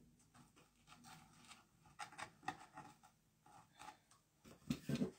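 Faint, scattered rustles and light taps of hands handling craft materials on a worktable, with a few soft sounds clustered about two seconds in and again near the end.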